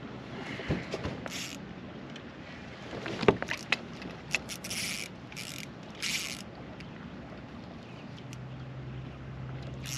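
Knocks and scrapes against a Hobie fishing kayak's hull and gear, several sharp knocks in the first half, followed by a few short rushing bursts of noise as the angler handles his rod over the side.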